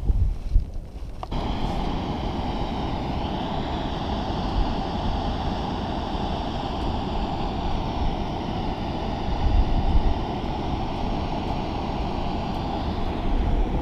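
Steady roar of rushing water, starting abruptly about a second in, with low wind buffeting on the microphone.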